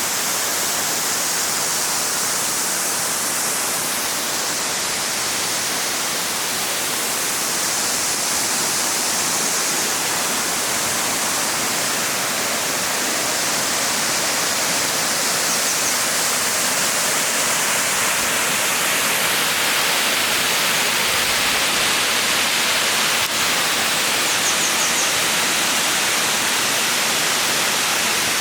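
Gugok Falls waterfall: a steady, loud rush of falling water, an even hiss with no pauses, its brightness swelling a little now and then.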